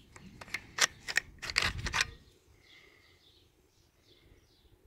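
Metallic clicks and knocks of a Mendoza .22 bolt-action rifle's bolt being opened and drawn out of the receiver, about half a dozen sharp clicks over two seconds.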